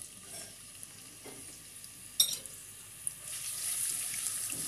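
Sliced onions sizzling as they fry in hot oil in a nonstick pan while being stirred with a silicone spatula. The sizzle is faint at first and grows louder about three seconds in, with a single sharp tap about two seconds in.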